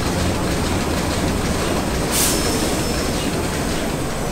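MAN S6V35 six-cylinder submarine diesel engine from 1917 running steadily, with a short sharp hiss about two seconds in.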